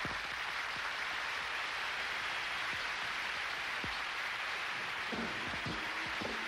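Opening of a Korean farmers' dance (pungmul) performance: a dense, steady wash of sound, with drum strikes and a held tone coming in about five seconds in.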